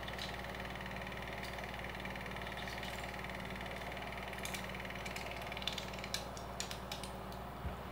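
Home-movie film projector running: a steady motor hum with the rapid, even chatter of the film advance. Sharper irregular clicks join in during the second half, as the film runs out and the screen goes blank white.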